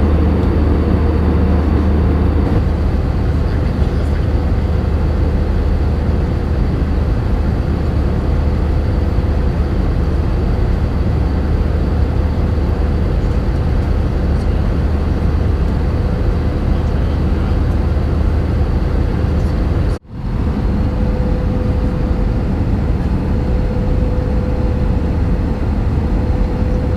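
Steady cabin noise of an Airbus A320 in flight: a constant rush of airflow and engine noise over a low hum, with a faint steady whine. About twenty seconds in, it cuts out for a moment, then carries on.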